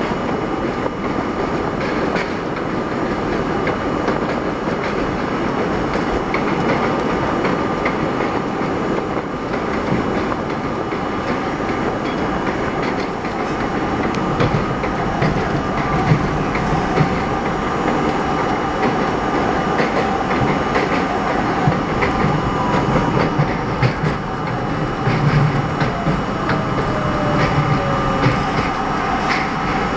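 An R32 subway train running at speed on elevated track, heard from inside the front car: a steady rumble of wheels and motors with irregular clicks and clacks as the wheels cross rail joints. A faint falling whine comes in near the end.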